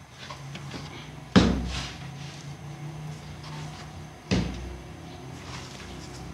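Two heavy thumps about three seconds apart, the first the louder, each dying away quickly.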